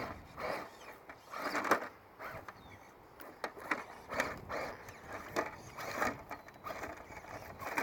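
Radio-controlled scale rock crawler driving in short, irregular bursts: its small electric motor and geared drivetrain whirring, with knocks and scrapes as it climbs over the terrain.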